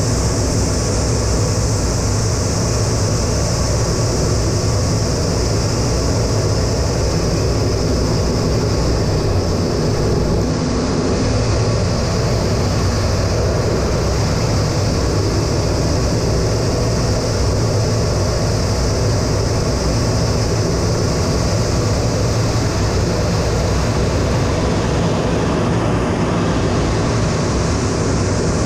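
Steady, unchanging noise of an A-10 Thunderbolt II's two General Electric TF34 turbofan engines heard from inside the cockpit.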